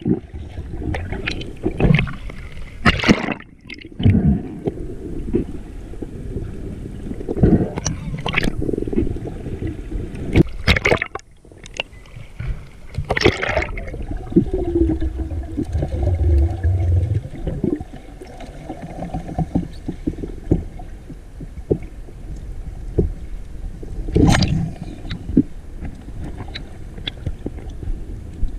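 Muffled underwater sound recorded by an action camera in its waterproof housing: water rushing and gurgling, with irregular knocks and swishes from the diver's movement and a low rumble about halfway through.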